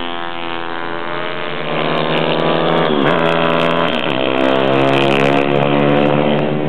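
Pit bike engines revving hard as the bikes race past, their pitch climbing, dipping sharply twice about three and four seconds in, then climbing again.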